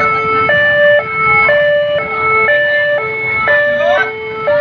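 Two-tone hi-lo siren, switching evenly between a lower and a higher note about every half second, over a low rumble.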